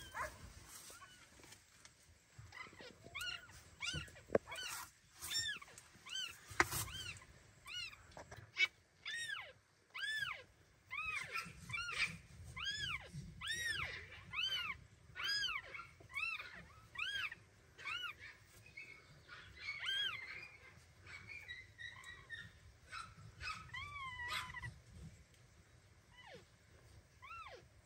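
Newborn kittens mewing: a long string of short, high, rising-and-falling cries, about one and a half a second, thinning out near the end.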